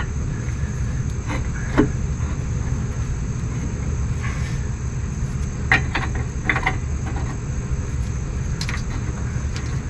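A few light metal clinks as a heavy replacement brake caliper is worked onto its rotor and mounting bracket by hand. Under them runs a steady low rumble and a steady high-pitched insect drone.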